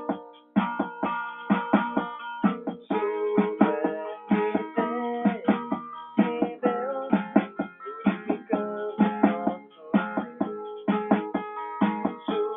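Music on a plucked string instrument: quick picked notes and chords, each note struck sharply and then fading.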